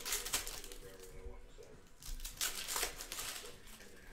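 Plastic cello-pack wrappers of Panini Mosaic trading cards being crinkled and torn open by hand, in two bursts of crackling.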